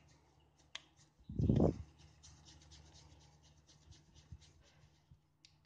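Hands rolling a soft paratha dough ball between the palms, a faint rubbing with light ticks. There is one dull thump about one and a half seconds in.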